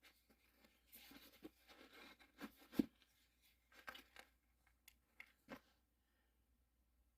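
Faint handling sounds: scattered clicks and rustling, with one sharper knock about three seconds in, then near silence.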